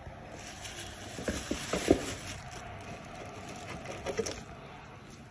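Handling noise: rustling with several knocks in the first two seconds, the loudest close to two seconds in, and a few more knocks near four seconds.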